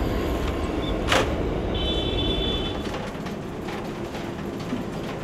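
Low street rumble as a Citi Bike rolls along, with a sharp clack about a second in and a short high squeal around two seconds in.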